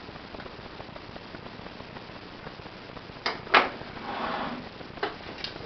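Rifle parts being handled and fitted together during reassembly: two sharp clicks a little after three seconds in, the second one the loudest, a brief scrape, then a couple of lighter clicks near the end. Before that there is only a faint steady hiss.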